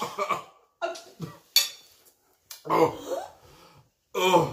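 Short wordless vocal outbursts from two people burning from very hot chilli curry: gasps, groans and coughs, about five brief bursts with pauses between.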